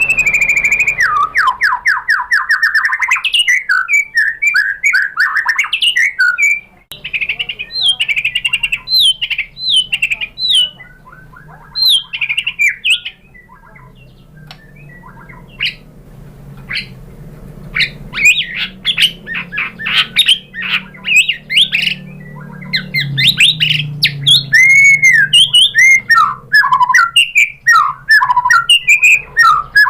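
White-rumped shama singing a long, varied song of clear whistles, rapid trills and chattering notes, with a quieter stretch around the middle before loud, dense phrases resume.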